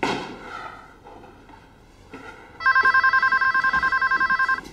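Electronic telephone ringing: one warbling ring of about two seconds, a fast trill between two pitches, starting a little past halfway through.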